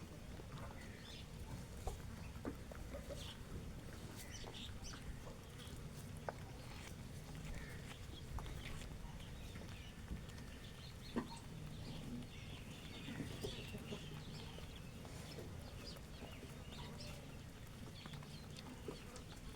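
Domestic hens and a rooster clucking softly while feeding, with many short, sharp clicks of beaks pecking at grain, over a low steady background noise.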